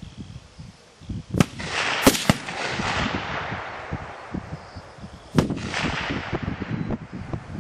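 Four rifle shots from an AK-pattern rifle: one about a second and a half in, two in quick succession about two seconds in, and another a little over five seconds in, each trailing off in a long echo.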